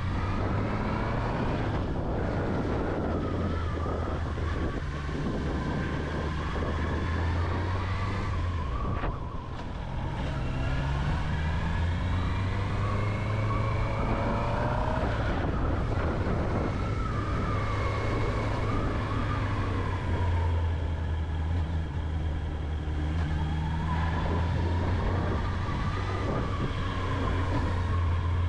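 Honda CB650R inline-four engine running on the move, its revs rising and falling. It dips briefly about nine seconds in, then climbs steadily in pitch.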